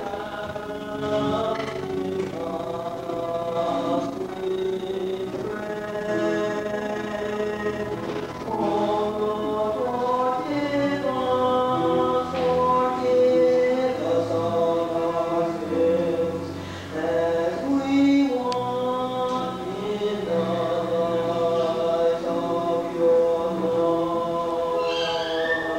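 A choir of children singing a song together, with long held notes.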